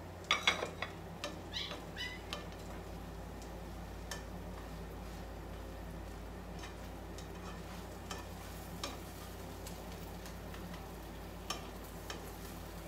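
Metal tongs clinking and scraping against a frying pan several times in the first two seconds, then a few light taps, over a steady soft sizzle of a tortilla and egg omelette quesadilla frying in the skillet.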